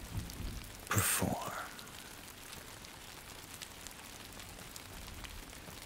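Steady rain ambience, an even soft hiss of rain falling, with one spoken word about a second in.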